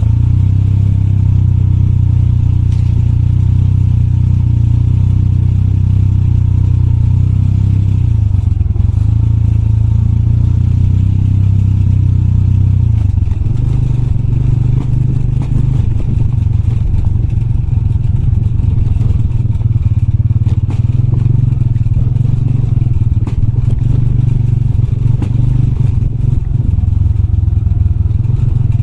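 Motorbike engine running steadily while riding a rough off-road trail, with scattered clatter and knocks from the bike over loose rocks.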